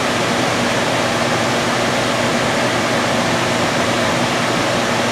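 Lampworking torch flame hissing steadily while glass is melted in it, with a faint low hum underneath.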